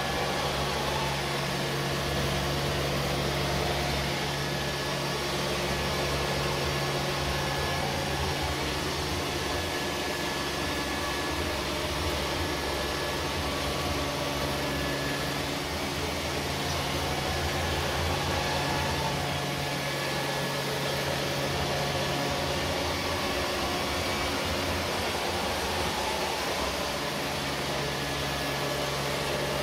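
Neato D7 and Samsung POWERbot VR9300 robot vacuums running, a steady whir of suction motors and brushes with a low hum underneath.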